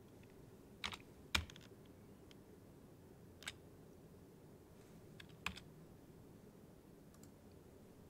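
A few scattered keystrokes on a computer keyboard, the loudest about a second and a half in, with faint room hiss between them.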